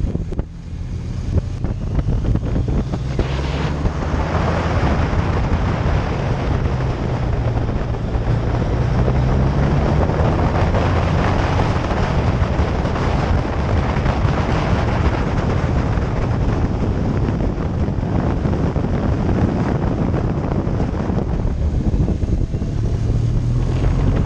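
Touring motorcycle ridden at road speed: wind rushing over the microphone, with the engine's low hum rising and falling in pitch as the revs change.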